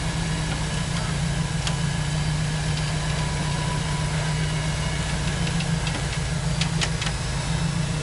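A 4x4 rock crawler's engine runs steadily at low revs as the truck creeps up a steep ledge. A few sharp clicks come near the end.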